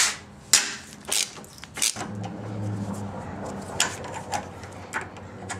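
Sharp metallic clinks of a socket extension and ratchet wrench against a bolt. From about two seconds in comes a steady mechanical whirring as the ratchet is worked to loosen it.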